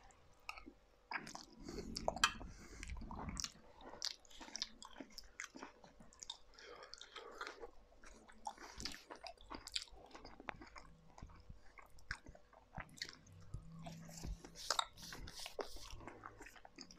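A man chewing a mouthful of spicy chicken tikka curry close to the microphone: many small, irregular wet mouth clicks and soft crunches.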